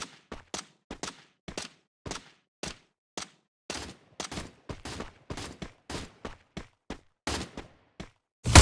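A series of sharp knocks, irregular at about two or three a second, then one much louder bang near the end that rings on.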